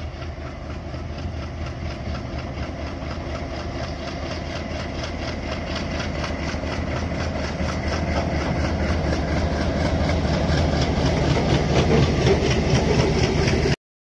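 WDM-3A diesel-electric locomotive's 16-cylinder ALCO 251 engine running as it hauls a freight train past, growing steadily louder as it draws level. The sound cuts off suddenly near the end.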